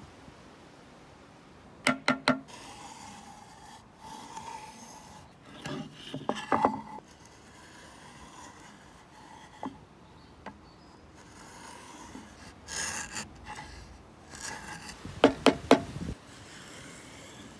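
A wooden marking gauge's steel pin scratching along a hardwood board, in short scraping strokes, broken by three clusters of quick, sharp knocks as the gauge and board are handled.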